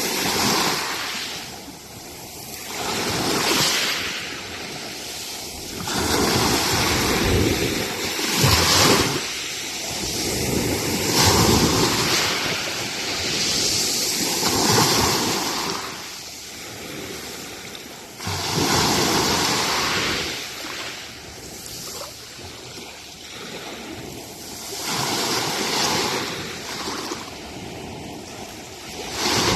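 Ionian Sea waves breaking and washing up the beach, swelling and falling back every few seconds, with some wind on the microphone.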